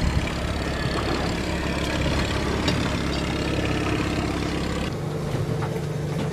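20 hp outboard motor on an inflatable tender running steadily under load while towing a disabled sailboat. About five seconds in the low drone cuts off abruptly, leaving a different, lighter steady hum with a few faint knocks.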